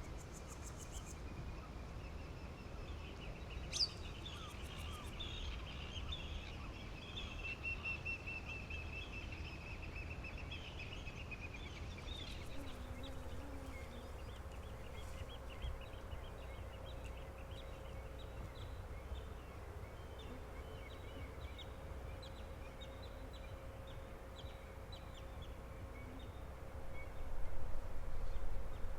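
Birds calling over a steady low background rumble. A run of calls and one sharp rising whistle come in the first part, then many short chirps, with a faint steady hum underneath.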